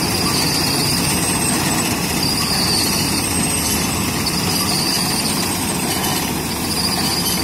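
Cotton opening (fluffing) machine driven by a tractor, running steadily: its spinning drums and the tractor's diesel engine make a loud, even mechanical din as fluffed cotton pours out.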